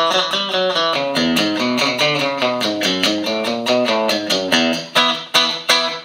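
Clean electric guitar through a Boss CP-1X compressor and Boss GE-7 equalizer into Roland JC-120 amps, playing a fast run of picked single notes. Near the end come three sharp, louder hits, and the sound then cuts off.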